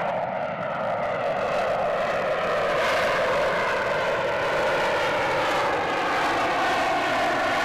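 F-35B Lightning II's single F135 turbofan in flight: a steady jet roar whose tone slowly sweeps and phases as the jet moves. The high hiss brightens about three seconds in.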